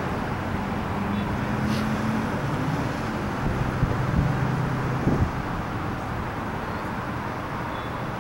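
Outdoor road traffic noise: a steady rushing hum with a vehicle engine droning past, and a couple of brief bumps about four and five seconds in.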